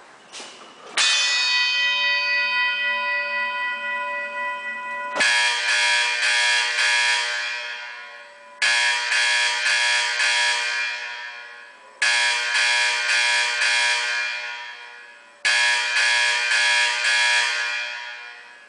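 Autocall fire alarm with Vibratone horns sounding the Cadence Marching Code 4-4-4-4: groups of four short blasts about three and a half seconds apart, each group ringing down before the next, a signal meant for orderly building evacuation. Before the coded groups begin there are a couple of clicks and one long ringing tone that fades over about four seconds.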